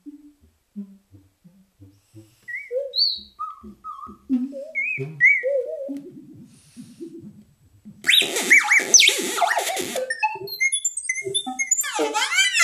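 Dekrispator digital synthesizer playing a randomly generated "magic" patch with effects: short electronic notes jumping between pitches, some bending up or down. About eight seconds in, the sound turns dense and bright with sweeping tones. It thins to scattered high blips, then turns dense again near the end.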